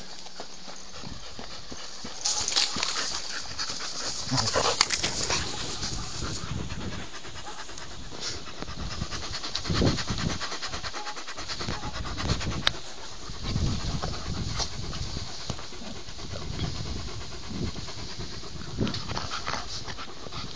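An Alaskan Malamute and a Border Collie panting as they play-wrestle, with irregular bursts of breath noise.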